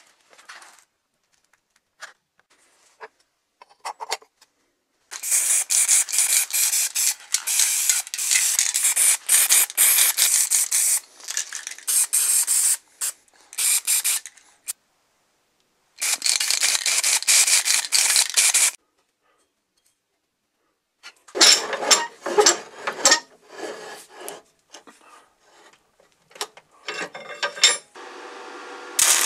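Aerosol spray-paint can spraying in several long hissing bursts of a few seconds each, with short gaps between them. After that comes a run of quick clicks and rattles, and near the end a steady motor hum starts.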